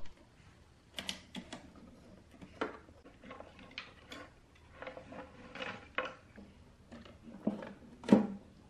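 Handling noise from a Sansui power amplifier's parts: wire-harness plugs and a circuit board clicking and rattling, with scattered knocks and scrapes on the metal chassis. The loudest knock comes near the end, as a side panel is pushed onto the chassis.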